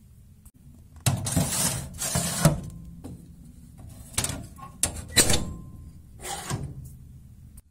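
Metal baking tray scraping as it slides into the oven of a Tuğra wood-burning cookstove, followed by several sharp knocks and clanks as the oven door is handled and shut.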